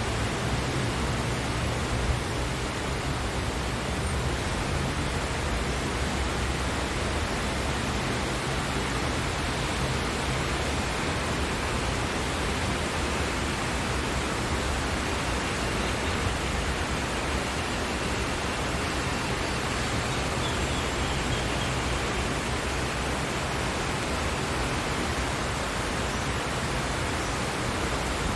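Steady, even rainfall with no change in intensity, over a low rumble that is strongest in the first few seconds.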